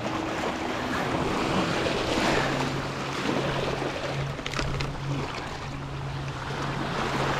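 Small waves lapping and washing over the rocks at the water's edge, with wind on the microphone and a steady low hum underneath.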